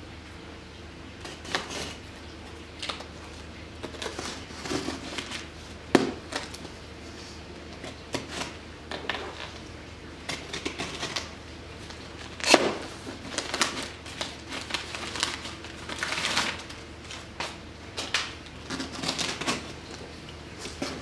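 Craft knife slicing and scoring packing tape on a cardboard box, making irregular scratches and clicks, with plastic wrap crinkling. Two sharper knocks stand out, about six seconds in and about twelve and a half seconds in.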